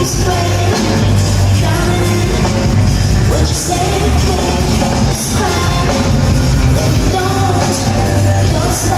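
Live electronic music played loud through a concert hall's sound system: a heavy, steady bass line and a sung vocal, with hi-hat-like hiss.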